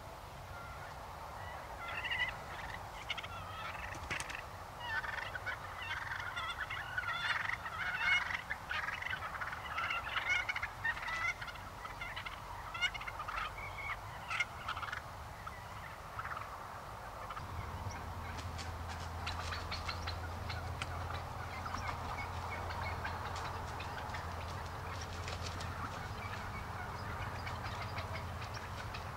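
Wild turkeys gobbling over and over, several rattling calls overlapping, thickest in the first half and thinning out later. A low steady hum comes in a little past halfway.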